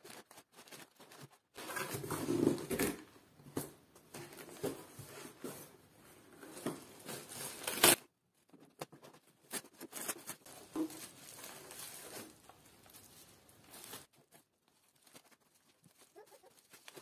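Brown kraft packing paper rustling and crinkling as it is pulled out of a cardboard box, with one sharp crackle about halfway through. Quieter rustling of packaging follows as plants wrapped in bubble wrap are handled.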